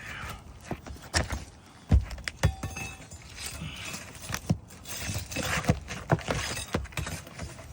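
A metal tool knocking, clicking and scraping against asphalt roof shingles while working a roofing nail loose, a string of irregular sharp knocks with short scrapes in between.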